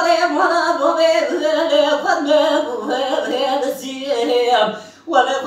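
A man singing dengbêj, unaccompanied Kurdish sung storytelling, in a high, ornamented voice with long wavering held notes. He breaks off briefly for breath near the end.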